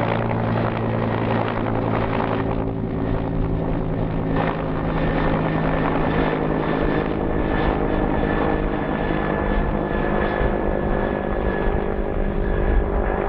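Bell 212 twin-turboshaft helicopter running steadily, a low rotor and engine hum under a high turbine whine that drops slightly in pitch about halfway through.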